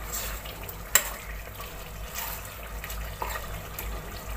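Metal spoon stirring pieces of mutton through thick, wet gravy in a steel pressure cooker, with a sharp clink of the spoon against the pot about a second in and a few lighter knocks later.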